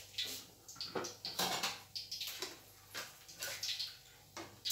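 Hot cooking oil crackling in a wok in irregular spurts of sizzle, after a batch of catfish has been fried.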